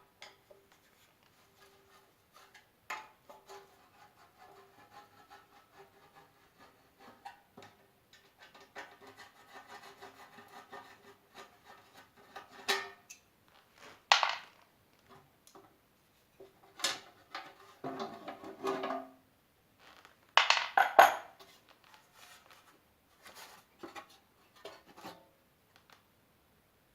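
Metal parts being handled and worked on: irregular clinks, scrapes and rubbing, with a few sharper, louder knocks and scrapes about halfway through and again about three-quarters of the way in.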